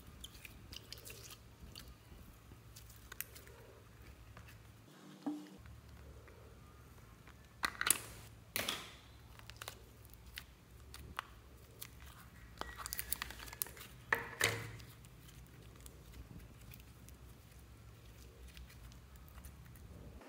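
Slime being squeezed and pressed by hand: soft, sticky squishing and crinkling. There are a few louder sharp pops, a pair just before the middle and another pair a few seconds later.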